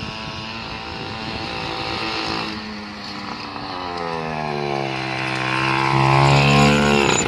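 Small mini-motorcycle engine running as the bike comes around. The engine note drops in pitch, then picks up and grows louder as it nears, loudest just before the end.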